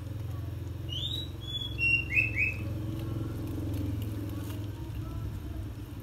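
Water misted from a hand-pumped spray bottle onto coco-peat bedding, with a steady low engine-like drone underneath. Small birds chirp five or six times between about one and two and a half seconds in, the loudest sounds here.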